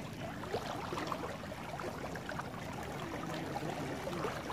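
Fast-flowing muddy floodwater running past bushes and a stump: a steady wash of moving water.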